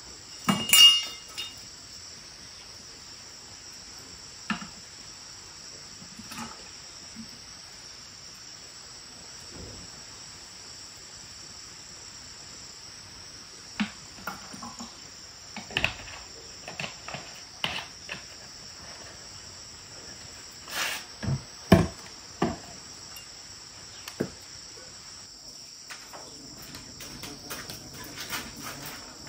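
Steady high chirring of a cricket chorus, with scattered knocks and clatters of objects being handled. The loudest is a ringing clack about a second in, and there is another cluster of knocks around the middle.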